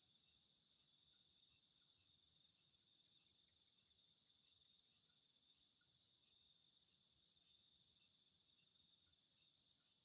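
Faint, steady insect chorus of crickets trilling, with a fast pulsing shimmer and a few scattered soft chirps.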